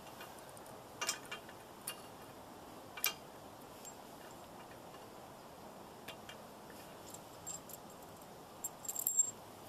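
Small metal clicks and clinks from steel hitch hardware being handled at a trailer hitch receiver, a few single ticks spaced out, then a quick jangling run of clinks near the end.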